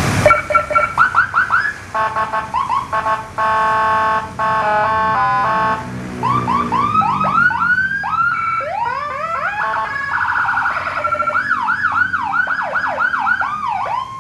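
Police vehicle's electronic siren cycling through its tones. It starts with a quick run of short rising whoops, then holds steady and rapidly stepping multi-tone chords for a few seconds. From about six seconds in it changes to repeated rising-and-falling sweeps that grow faster toward the end.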